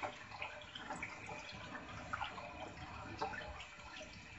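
Water poured from a plastic jug into a steel pot of gram-flour and yogurt batter while a wooden spoon stirs it: faint sloshing and splashing with small scattered clicks of the spoon.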